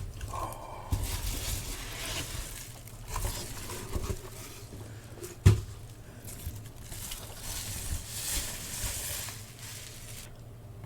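Rustling and crinkling of cardboard boxes and plastic wrap being handled and opened, with scattered light knocks and one sharp knock about five and a half seconds in.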